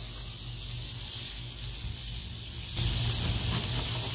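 Ground beef sizzling on a Blackstone flat-top griddle, a steady hiss that grows louder about three seconds in.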